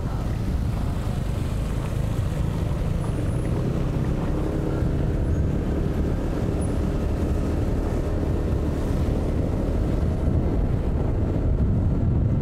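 Motorbike engine running steadily as it is ridden through shallow floodwater on a street, with a faint engine tone that rises and falls in the middle.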